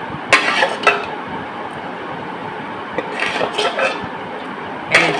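A metal spoon clinking against a serving bowl: two sharp clinks in the first second, a short run of them about three seconds in, and two more near the end, over a steady background hiss.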